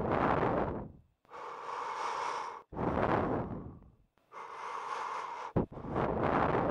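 A caller breathing heavily on the line: slow, loud in-and-out breaths that alternate, each lasting about a second and a half.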